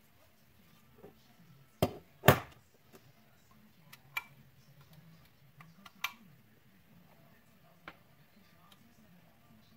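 Scattered clicks and knocks of small parts and tools being handled while working on a vacuum cleaner motor. Two sharp knocks close together about two seconds in are the loudest, with lighter clicks a few seconds apart after them.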